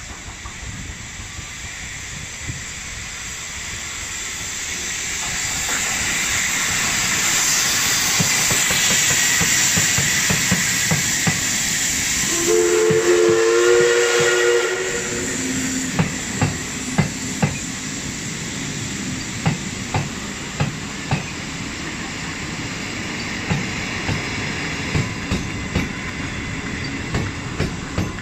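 DT668 steam locomotive approaching and passing, its steam hiss building to a peak. It sounds a two-note whistle for about two seconds around the middle. After it, the coach wheels click over the rail joints in pairs as the train rolls by.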